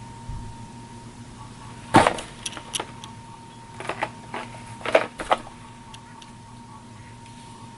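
Sharp plastic clicks and knocks from handling a GoPro Hero 7 Black camera and its accessories. There is one loud knock about two seconds in, then scattered clicks, with a cluster around four to five seconds in, over a faint steady hum.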